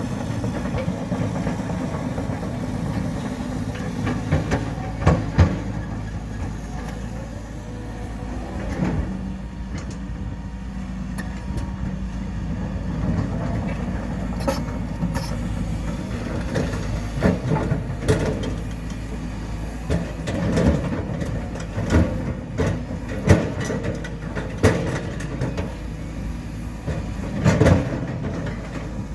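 Heavy diesel construction machinery running steadily, with repeated sharp metallic clanks and knocks, a couple about five seconds in and many more through the second half.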